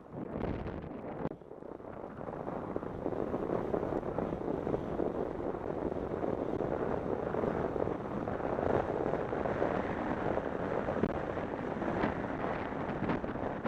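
Steady rush of wind over the microphone of a camera mounted on a moving bicycle, mixed with the rolling hum of its tyres on asphalt, dipping briefly about a second in.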